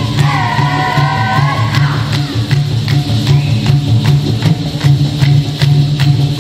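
Dikir barat performance: a solo voice sings a wavering, drawn-out line for about the first two seconds over a steady rhythm of sharp percussive strikes, about three a second. After the voice drops out the rhythm continues on its own.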